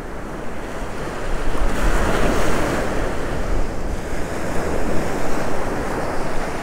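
Ocean surf breaking and washing up the beach, swelling a little about two seconds in, with wind buffeting the microphone.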